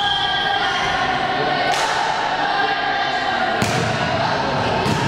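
Volleyball being struck during a rally, three sharp hits about two seconds in, at three and a half seconds and near the end, over a steady din of many voices chanting and shouting.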